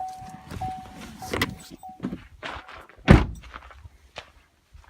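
Pickup truck door opened with clicks and knocks while a chime sounds in short pieces, then the door shut with one loud thunk about three seconds in.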